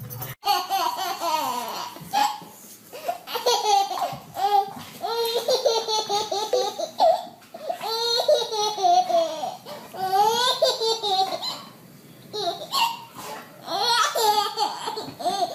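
A baby laughing hard, in repeated high-pitched bouts with short breaths between them.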